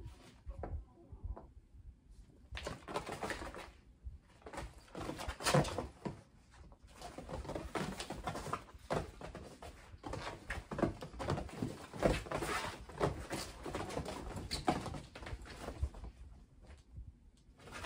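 Kittens scampering, pouncing and wrestling on the fabric floor of a pop-up playpen: an irregular patter of soft thumps, paw scuffs and claw scratching.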